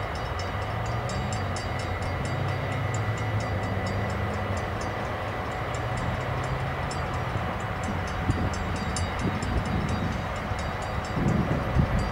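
Electric locomotive-hauled train approaching in the distance: a steady low rumble and hum. Wind gusts on the microphone near the end.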